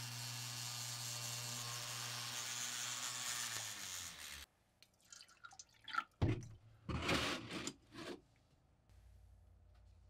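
A small high-speed rotary tool buzzes steadily while drilling a small hole in a clear plastic dome, then winds down and stops. About a second later, distilled water is poured from a plastic jug into a plastic cup in a few splashing pours.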